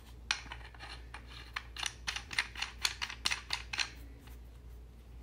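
Brass M22 fitting being screwed by hand onto the brass inlet of a pressure washer gun: a quick run of light clicks and scrapes, several a second, that stops about four seconds in.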